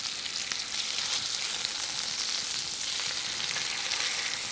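Butter and rendered bacon fat sizzling steadily in a hot stainless steel skillet around seared bacon-wrapped scallops.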